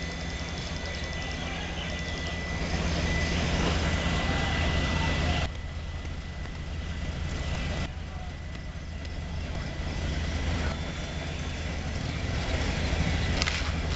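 Fire engine's engine running, a steady low hum with a thin high whine above it and a hiss of noise. The sound drops abruptly about five and a half seconds in and comes back about two seconds later.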